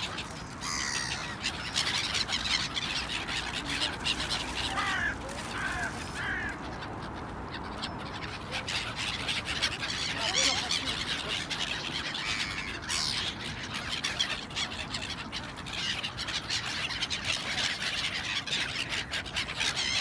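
A flock of gulls calling, many short harsh calls overlapping and scattered throughout.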